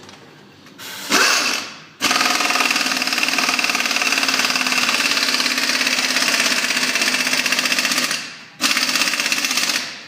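Pneumatic impact wrench hammering: a short burst, then a long run of about six seconds and another of about a second and a half.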